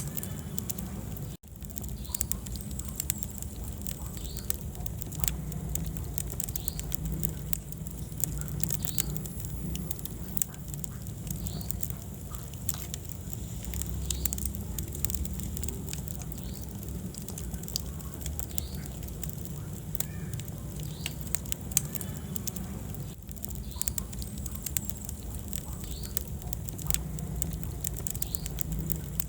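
Wood fire burning in a fireplace: a steady low rumble of the flames with frequent, irregular sharp crackles and pops. The sound cuts out for an instant about a second and a half in.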